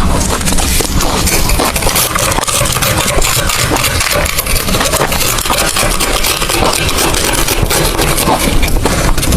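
Ice being chewed close to the microphone: dense, continuous loud crunching and crackling with no pause.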